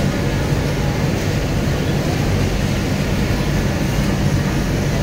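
Steady, loud machinery din of a workshop: a continuous low hum and rumble with no stops or changes.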